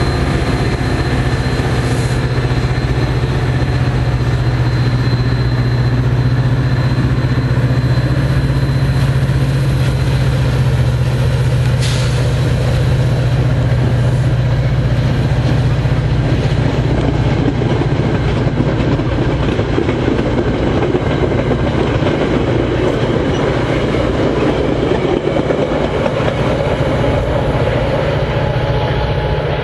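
A Metra diesel locomotive and its bilevel commuter coaches passing close by: a steady low engine drone throughout, with the rumble of the cars on the rails growing louder in the second half. Two brief sharp clicks are heard, about two seconds in and again near the middle.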